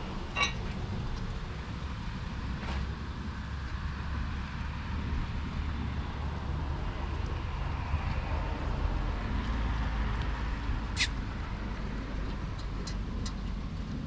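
Steady low background rumble with a few short sharp clicks from small hardware being handled, the loudest about eleven seconds in.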